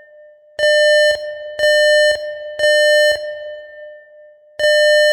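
Electronic alarm beeping: three loud, shrill half-second beeps with half-second gaps, a pause, then a new group begins near the end. This is the three-beep temporal pattern used by fire and smoke evacuation alarms.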